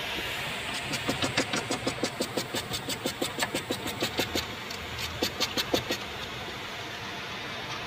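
Ratchet wrench clicking in quick, even strokes, about six clicks a second, as a bolt on the AC condenser bracket is undone, with a pause and a shorter run of clicks about five seconds in. Steady background noise underneath.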